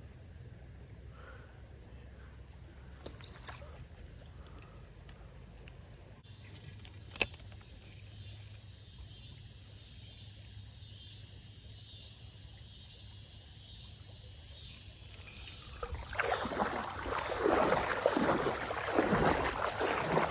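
Crickets chirping in a steady high-pitched drone. There is one sharp click about seven seconds in. About sixteen seconds in, louder irregular rustling and sloshing noise starts up and carries on to the end.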